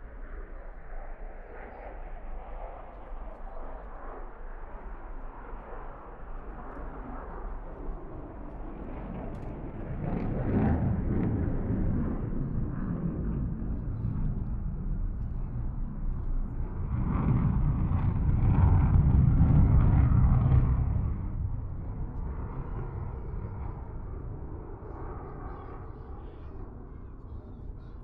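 Distant military jet engine noise, a deep rumble that swells about ten seconds in, surges to its loudest around eighteen to twenty seconds in, then fades away.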